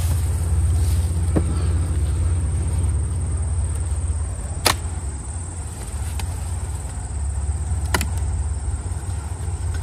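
Steady low wind rumble buffeting the microphone, with two short sharp clicks about three seconds apart.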